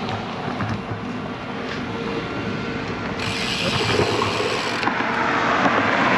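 Rapid ticking of a bicycle's rear freehub pawls on an ICAN Alpha 46 carbon wheel, the sign that the rider is coasting. A rushing noise builds under it near the end.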